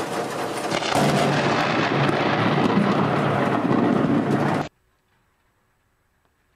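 Thunder from a close lightning strike over a steady storm noise: it breaks in loudly about a second in and rumbles on, then cuts off abruptly, followed by about two seconds of silence.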